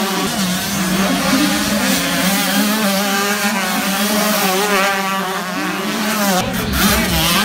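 A pack of 125cc two-stroke motocross bikes at full throttle, many engines revving at once, their pitches rising and falling as they accelerate away and pass.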